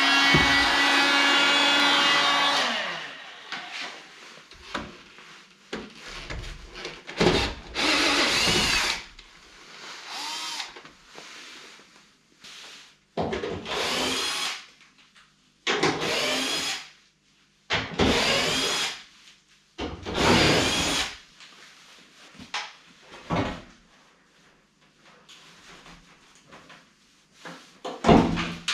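Cordless drill-driver backing out the front fender's screws. It runs in short bursts, each one rising in pitch as the motor spins up, and the first is held for about three seconds.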